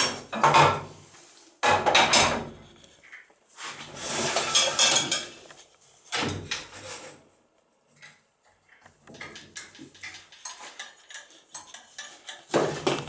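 Metal clanks and rattles from handling a wood lathe's fittings while the lathe is stopped: the chuck key and the cast-iron tool rest being set in place. Several separate knocks, a longer scraping rattle about four seconds in, and lighter clicks near the end.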